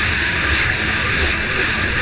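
Racing jet ski running flat out, its engine heard from a camera mounted on the craft along with a steady rush of wind and water spray over the microphone.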